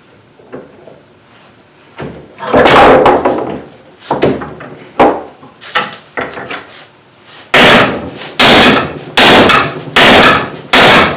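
Claw hammer striking a 3D-printed PLA+ plastic lathe faceplate clamped in a steel bench vise: a loud knock about two seconds in and a few lighter knocks, then five hard blows in quick succession, under a second apart, near the end.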